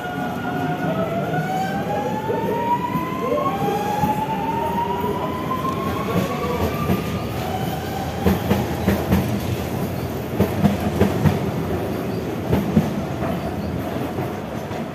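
A Series 4000 electric suburban train pulling out of the station. Its traction motors whine in several tones that climb in pitch as it accelerates. In the second half the wheels clatter over the rail joints as the cars go by.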